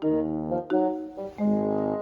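Instrumental background music with piano and brass-like tones, sustained notes changing every half second or so.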